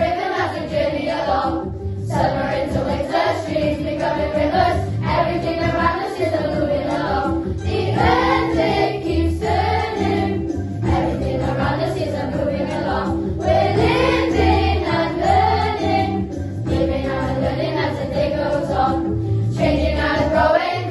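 A class of children singing a song together over instrumental accompaniment with a steady bass line.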